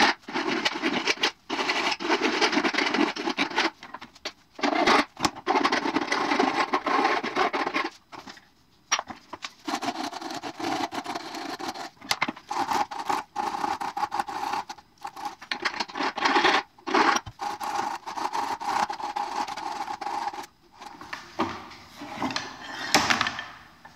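Hand-finishing a forged steel-rod slingshot frame clamped at the bench: rapid back-and-forth abrasive rubbing strokes on the steel, in runs broken by short pauses.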